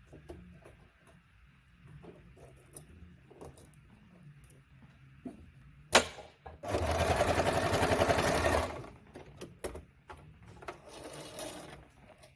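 Singer 2282 Tradition electric sewing machine, fitted with a leather needle and roller foot, stitching fast through folded thick material. After some quiet handling clicks there is a sharp knock about six seconds in. Then comes a loud, rapid run of stitching lasting about two seconds, and a shorter, quieter run near the end.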